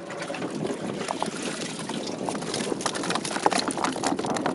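Water splashing and sloshing in a fishing boat's live well as a landing net is swept through it and lifted out, with a run of sharp splashes and knocks from about two seconds in.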